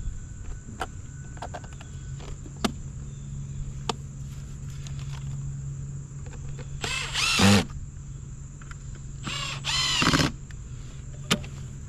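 Milwaukee cordless drill/driver driving screws in two short bursts about two and a half seconds apart, its motor pitch sweeping as it runs. Light clicks and taps of handling come before the first burst.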